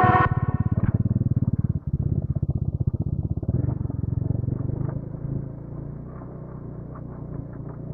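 Motorcycle engine running with a rapid, even thudding exhaust beat. It dips briefly a little under two seconds in and eases off to a quieter run about five seconds in.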